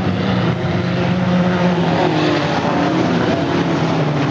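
Chevrolet Chevette race cars running laps on a dirt oval, their engines droning steadily at speed, with small shifts in pitch as the cars go around.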